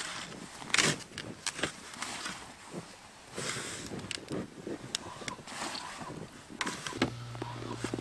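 Snow shovel repeatedly scraping, chopping and crunching into packed snow, several uneven strokes. Near the end a low steady engine hum starts and keeps going.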